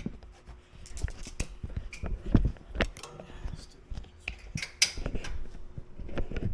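Irregular clicks, knocks and rustling of small parts and tools being handled, a dozen or so sharp taps spread unevenly, the loudest about two and a half and five seconds in.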